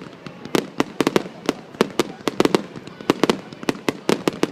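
Fireworks going off in quick succession: about twenty sharp bangs at irregular spacing, several a second, some landing almost on top of one another.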